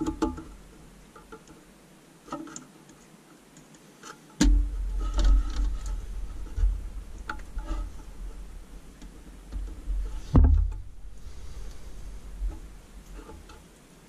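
Scattered small plastic clicks and ticks of hands fitting a toilet fill valve's refill hose and clip inside a porcelain tank, with low rumbling handling knocks from about four seconds in and one sharper click near ten seconds.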